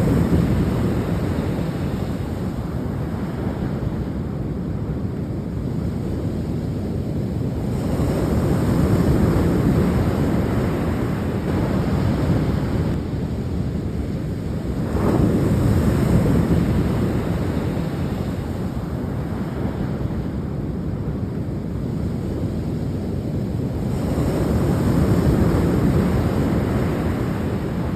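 Sea waves breaking and washing on the shore, the surf swelling about every eight seconds, with wind rumbling on the microphone.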